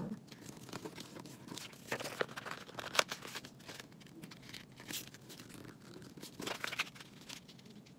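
A sheet of black paper rustling and crackling as it is folded and its creases are pressed flat by hand, in scattered short rustles with the sharpest crackle about three seconds in.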